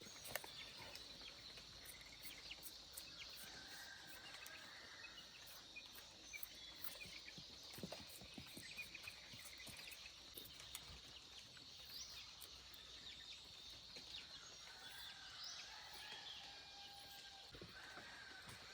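Faint outdoor ambience: scattered bird chirps over a steady high-pitched insect drone, with a few soft clicks.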